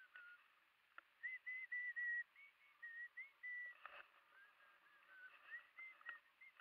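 A flight variometer beeping: from about a second in, runs of short beeps near one pitch that steps up and down, dropping lower past the middle and rising again near the end. A vario's beeps signal that the glider is climbing in lift. A few faint clicks are heard as well.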